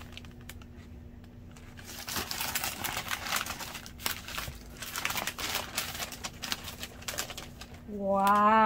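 Newspaper wrapping crumpled and unfolded by hand, a rustling crackle that gets busier about two seconds in. Near the end a woman's drawn-out exclamation comes in over it.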